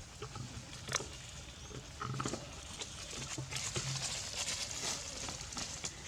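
Monkeys moving and calling: a sharp click about a second in, a short grunt-like call at about two seconds, then busy scuffling and rustling through the second half.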